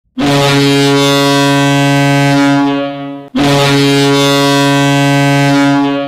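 Boston Bruins arena goal horn sounding two long, loud, deep blasts of about three seconds each, the second starting right after the first stops.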